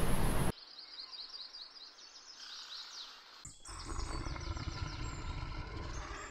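Small birds chirping in rapid series of short, high, falling notes, several a second. A loud rushing noise cuts off abruptly about half a second in, and a low rumbling background comes in a little past the middle while the chirping goes on.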